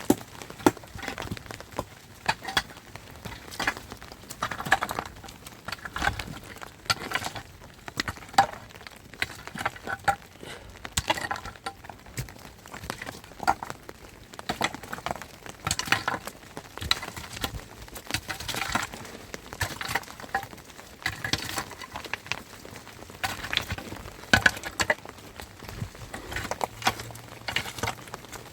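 Rain pattering and dripping, with irregular sharp drop ticks over a steady hiss.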